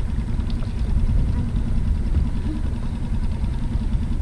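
Small Tohatsu outboard motor running steadily at low trolling speed, a low continuous rumble.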